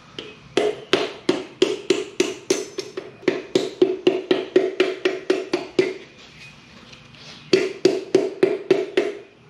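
Dead blow hammer tapping around a piston ring compressor to seat it flat on the deck of a small-block Chevy V8 block. The light taps come about three a second, each with a short metallic ring. They pause for a second and a half, then a few more taps follow near the end.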